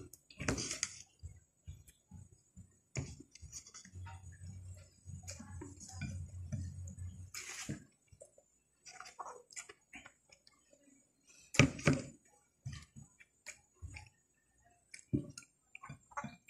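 Close-up eating sounds: chewing and lip smacks, with scattered light clicks and taps of fingers working rice on a glass plate. A low steady hum runs for about three seconds in the middle.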